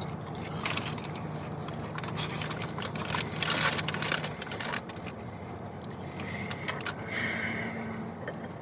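Steady low hum of a car cabin with the engine running, with a stretch of rustling in the middle.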